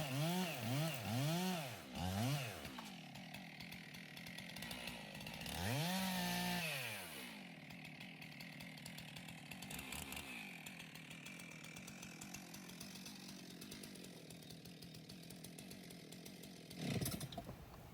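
Chainsaw revved in short bursts, its motor pitch rising and falling four times in quick succession, then once more for a longer spell about six seconds in, followed by a quieter steady running sound.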